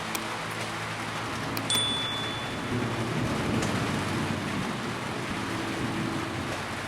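Heavy rain falling steadily, with a low rumble of thunder about three seconds in. About two seconds in there is a brief sharp sound, followed by a short high steady tone.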